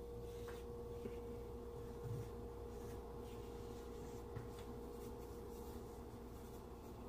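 Charcoal pencil strokes scratching and rubbing on drawing paper, soft and irregular. Under them runs a steady faint hum at one pitch.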